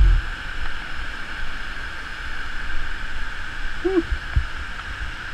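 Steady rushing of wind and river water, with low gusts of wind buffeting the body-worn camera's microphone as the jumper swings on the bungee cord. There is a loud buffet at the very start, and a short hummed voice sound rises and falls about four seconds in.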